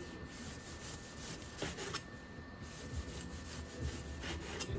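Chinese cleaver slicing fatty cured pork on a wooden cutting board: a quiet sawing of the blade through the meat, with a few light knocks of the blade on the board.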